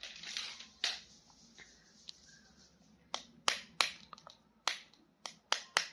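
Plastic action figures and packaging being handled. A brief rustle at the start is followed by a string of sharp clicks and taps, most of them in the last three seconds.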